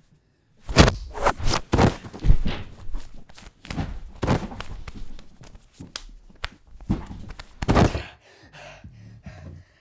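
Irregular thumps, knocks and scuffling of a body struggling and thrashing on the floor, with several hard hits in the first half and another near the end.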